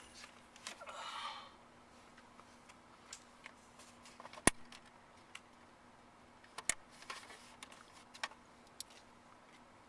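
Scattered light clicks and taps of hand tools and plastic trim being handled at a car's steering column, with one sharper click about four and a half seconds in, over a faint steady hum.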